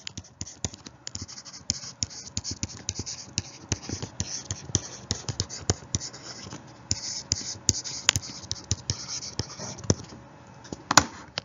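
Irregular taps and clicks with scratchy rubbing between them, desk handling noise from the person annotating the slide with a pen; one louder click near the end.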